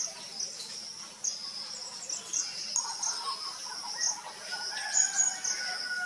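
Forest ambience: birds chirping and calling over a steady high-pitched insect drone, with a long steady whistled note in the last second and a half.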